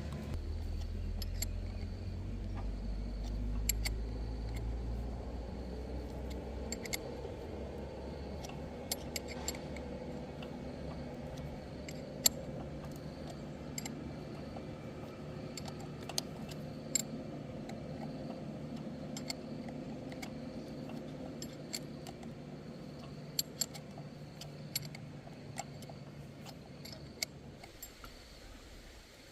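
Light metallic clinks and taps every second or two, like hand tools being handled and set down on metal parts, over a steady low hum that is heaviest for the first few seconds and cuts out near the end.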